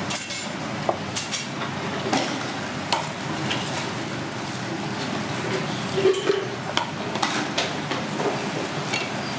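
A cleaver knocking and scraping on a wooden chopping block as diced carrot is scooped up: scattered single knocks, irregularly spaced, over a steady hiss.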